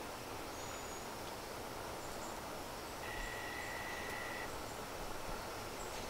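Quiet woodland ambience: a steady hiss with a few faint, short high chirps. About three seconds in, a single steady whistle-like tone is held for about a second and a half.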